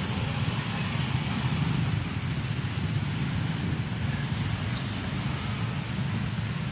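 Road traffic of cars, taxis and motorcycles driving past close by: a steady mix of engine and tyre noise, with no single vehicle standing out.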